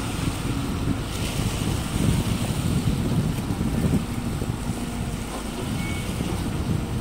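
Hydraulic excavator's diesel engine running under load as the boom swings and the bucket works into rubble in shallow water. A steady low rumble, with wind noise on the microphone.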